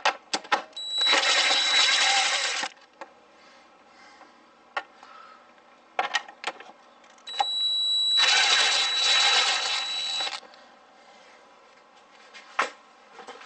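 A cordless power driver with an 8 mm socket on a long extension spins out screws on a plastic airbox lid, in two bursts of whirring with a steady high whine, the first short and the second about three seconds long. Short clicks and knocks of the tool and socket being moved and seated come in between.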